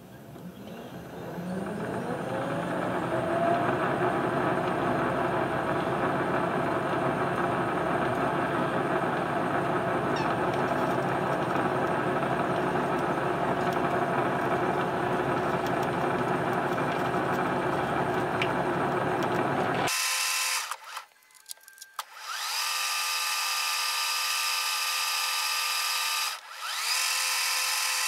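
Metal lathe spinning up with a rising whine and running steadily while a boring-bar threading tool cuts internal NPT pipe threads, the half nut engaged. About two-thirds of the way through the sound turns thinner and higher, and it is switched off and on twice, spinning back up each time.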